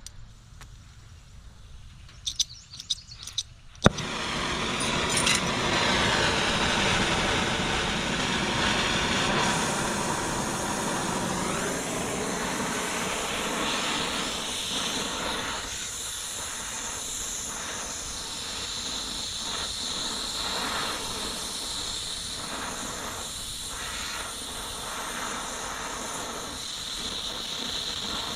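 A few light metal clicks, then about four seconds in a gas torch starts with a sharp pop into a loud, steady hissing roar. This is the sound of heating steel rod so it can be bent.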